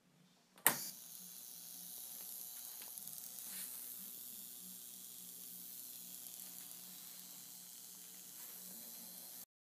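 Homemade electrostatic ion thruster on a flyback-transformer high-voltage supply, running with a steady high-pitched corona-discharge hiss and a low electrical buzz underneath. A sharp click comes just under a second in, and the sound cuts off suddenly near the end.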